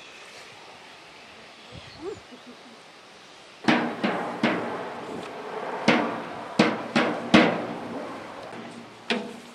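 Irregular series of about eight sharp struck knocks, each with a short ringing tone, starting a little over a third of the way in after a quiet stretch.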